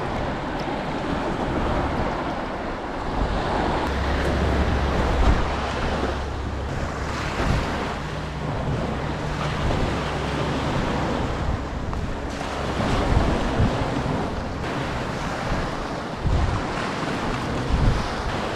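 Small waves washing on a pebble shoreline, with wind rumbling on the microphone, heaviest in the middle.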